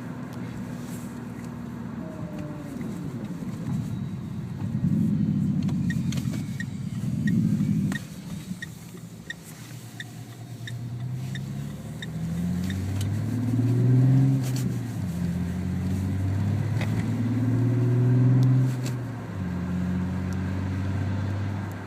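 R-Sound Effect engine sound from the R-Link system of a Renault Fluence 1.6 dCi, rising in pitch in several runs as the car accelerates, with sudden drops between them. A regular ticking, about two a second, runs through the middle.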